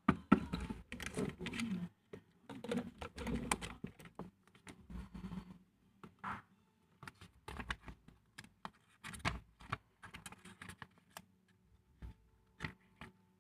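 Irregular light taps, clicks and rustling from paper and stationery being handled on a desk while a journal is put together, busiest in the first few seconds.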